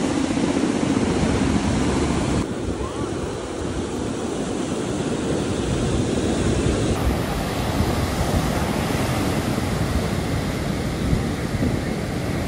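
Ocean surf breaking and washing up the sand in a steady wash, with wind rumbling on the microphone.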